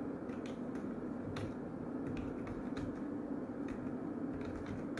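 Computer keyboard keystrokes: a handful of separate key clicks spread a second or so apart, over a steady low hum.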